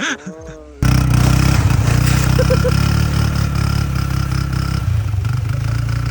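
A vehicle engine running steadily at an even speed under a steady rush of noise. It comes in abruptly about a second in.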